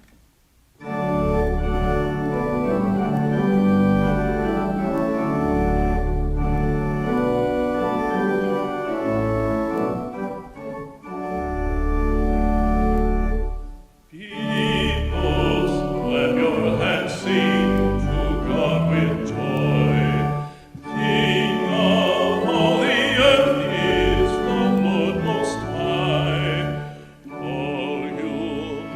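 Church organ playing held chords as an introduction. About fourteen seconds in, singing with vibrato joins the organ.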